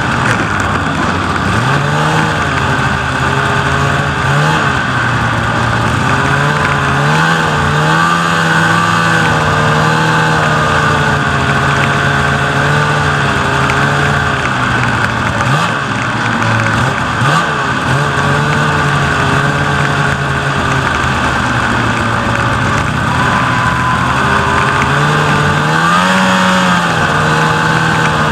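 Snowmobile engine running along a trail, its pitch dipping and rising again and again with the throttle, over a steady rushing hiss.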